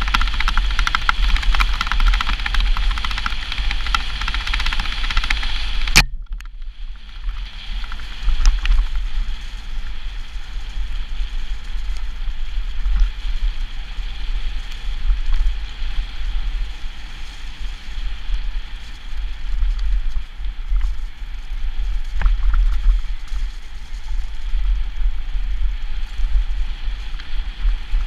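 Mountain bike rolling along a rough forest dirt trail, with wind buffeting the microphone as a steady low rumble, plus tyre hiss and small rattling clicks from the bike over the ground. About six seconds in there is one sharp click, after which the higher hiss falls away.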